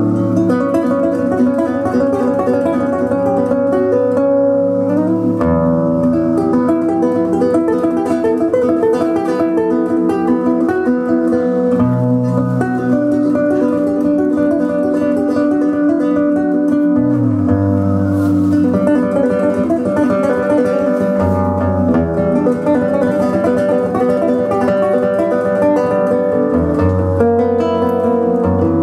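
Cutaway nylon-string classical guitar played fingerstyle: a continuous flow of plucked melody notes over bass notes that change every few seconds.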